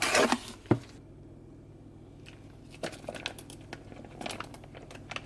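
A foil pouch of wet cat food pulled rustling out of its cardboard multipack box, with a single knock just after. Then light, irregular crinkles and clicks as the pouch is squeezed out into a plastic food bowl.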